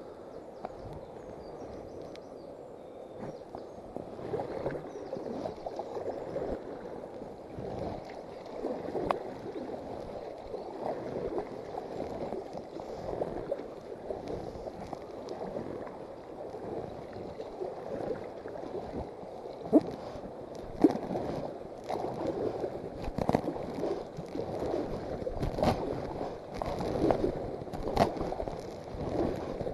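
River water gurgling and lapping against an inflatable kayak's hull as it drifts, with small irregular ticks and a couple of sharper knocks about two-thirds of the way in.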